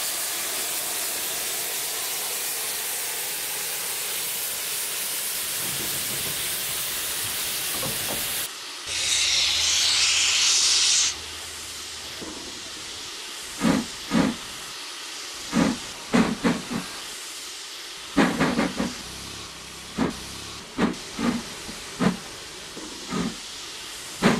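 Austerity saddle-tank steam locomotive hissing steadily, then a louder blast of steam for about two and a half seconds. From about halfway through come slow, uneven exhaust chuffs, in ones and clusters, as it gets moving with steam blowing from its cylinders.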